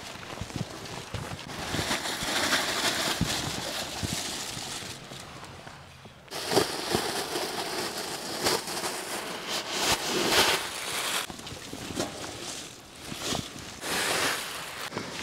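Plastic bags rustling and crinkling in bursts as they are handled and pulled out of a metal drum, with scattered sharp crackles.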